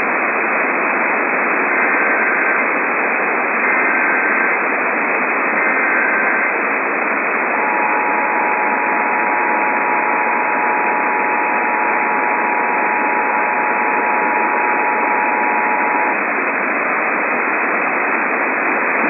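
Emergency Alert System header picked up on a weak, static-filled radio signal: three short bursts of the SAME data warble about two seconds apart, then the two-tone EAS attention signal held for about eight and a half seconds, all under loud steady static hiss.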